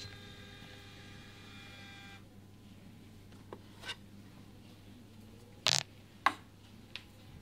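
Coffee vending machine finishing a drink: a click, then a steady whine of several tones for about two seconds that stops suddenly, over a low machine hum. Later the paper cup is taken out of the machine, with two sharp knocks about half a second apart.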